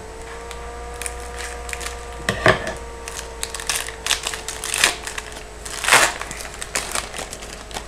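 A hockey card pack's wrapper being torn open and crinkled, with irregular crackles and clicks, louder ones around the middle and near the end, over a steady faint tone.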